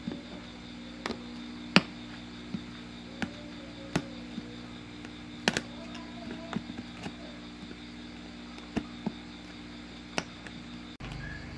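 Needle-nose pliers snipping and snapping off bits of brittle, broken plastic edge: about a dozen sharp, irregular clicks, the loudest about two seconds in, over a steady background hum.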